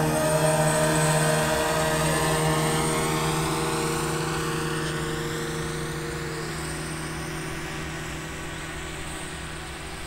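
DJI Mavic Mini drone's propellers humming steadily, growing fainter as the drone flies away.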